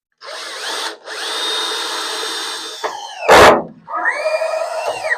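Cordless drill driving screws into sheet metal: the motor whines in three runs, its pitch sagging at the end of each as the screw seats. A single loud clunk about three seconds in.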